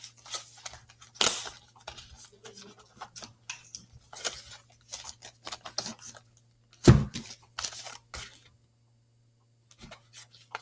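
Cardboard box being handled and opened by hand: irregular rustling, scraping and tearing of cardboard and packaging, with sharp knocks. The loudest bursts come about a second in and about seven seconds in, and it goes mostly quiet near the end.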